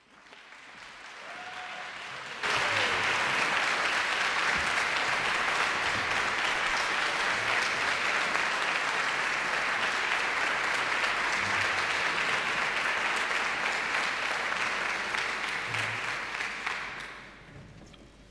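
Concert audience applauding the soloist and conductor. The applause is faint at first, comes in suddenly at full strength about two and a half seconds in, holds steady, and dies away near the end.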